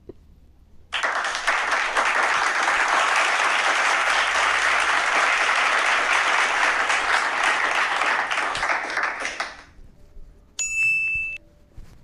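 Audience applauding: dense clapping that starts suddenly about a second in and fades out after about nine seconds. A short, bright ding follows near the end.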